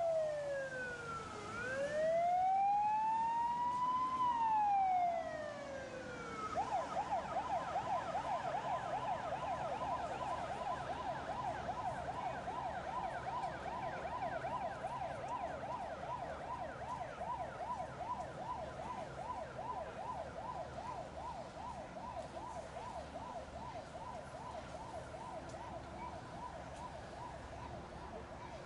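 Fire rescue boat's siren: a slow wail gliding down and up, switching about six seconds in to a fast warbling yelp that goes on and slowly fades.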